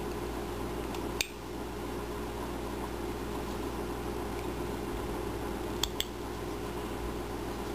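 Steady background hum with a few small, sharp clicks as a carving knife cuts tiny chips from basswood: one about a second in and two close together near the end.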